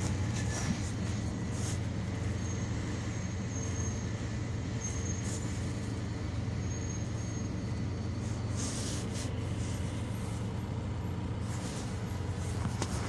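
Inside a Volvo B290R city bus under way: the rear-mounted diesel engine and road noise make a steady low drone through the cabin. Two brief hisses come near the middle and near the end.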